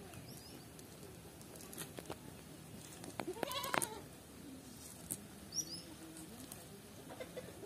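A single short, wavering call from a farm animal, a little over three seconds in, standing out over a faint background; a brief high bird chirp follows a couple of seconds later.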